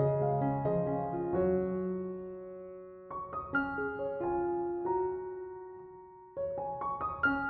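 Soft piano music: single notes and short runs struck and left to ring and fade, with a fresh flurry of notes about three seconds in and again near the end.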